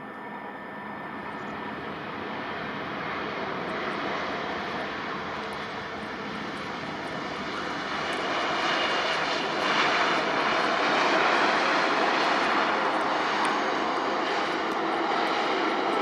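Boeing 787-9 Dreamliner's jet engines running as it arrives, a steady rushing noise with a faint whine that grows louder as the airliner approaches. It is loudest about ten seconds in and stays loud.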